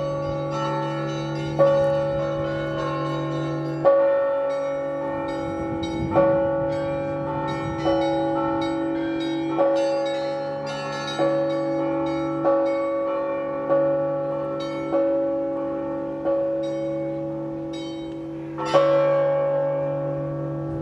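Russian Orthodox church bells ringing: a heavy bell struck about every one and a half to two seconds, with smaller bells chiming quickly in between over the lingering hum of the big bells. The loudest stroke comes near the end.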